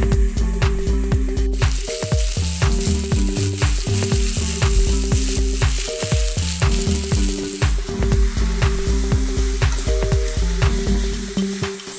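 Potatoes and beans sizzling in an aluminium kadai, with a spatula stirring them, under background electronic music with a steady beat. The sizzling hiss comes up about a second and a half in.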